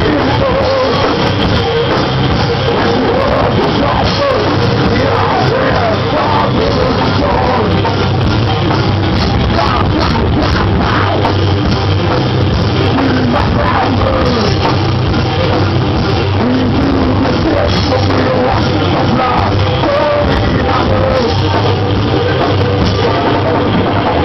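A live rock band playing loudly and steadily, with a singer's voice heard at times over the guitars and drums.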